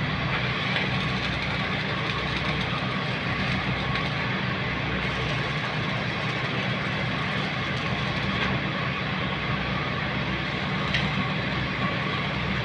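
A machine running steadily: an engine-like drone with an even hiss over it, unchanged throughout.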